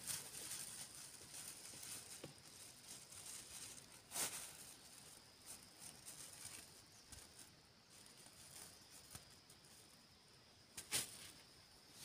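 Faint rustling footsteps through dry grass and leaves, with two louder brushing rustles, about four seconds in and near the end.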